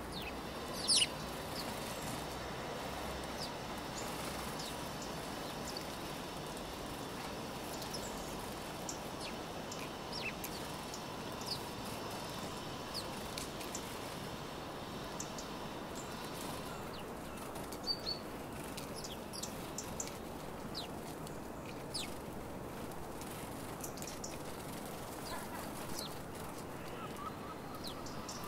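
House sparrows at a feeder: scattered short chirps and squabbling calls, with wing flutters as birds land and leave, over steady background noise. The loudest is one sharp sound about a second in.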